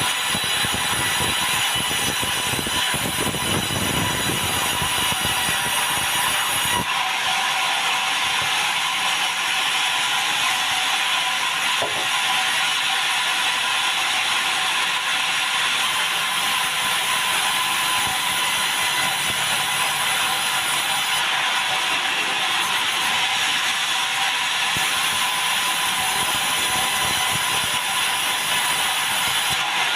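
Sawmill saw cutting meranti log, a steady, loud, hissing whine of the blade through the wood that shifts in tone about seven seconds in.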